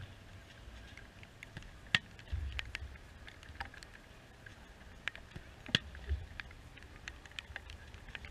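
Outdoor camera microphone with low wind rumble swelling in bursts, light scattered ticks, and two sharp knocks about four seconds apart.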